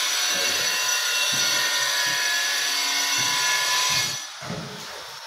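Long-handled rubber squeegee scraping wet tile-grout slurry across a ceramic tile floor in repeated strokes, about one a second. Under the strokes runs a steady high hiss that cuts off about four seconds in.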